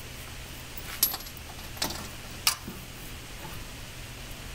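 A few short metallic clinks of steel bolts, nuts and washers being handled and fitted while the sand holder is bolted to the steel frame of a concrete block moulding machine; the loudest comes about two and a half seconds in.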